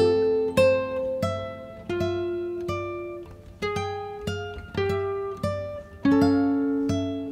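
Background music: an acoustic guitar playing a slow melody of single plucked notes, each ringing and fading before the next.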